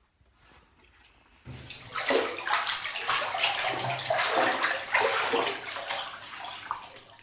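Water splashing and sloshing, starting suddenly about a second and a half in and going on unevenly.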